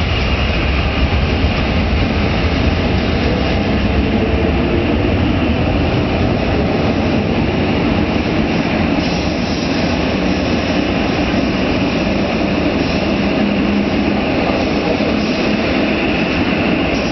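Passenger train rolling slowly along a station platform: a steady low rumble of wheels and running gear.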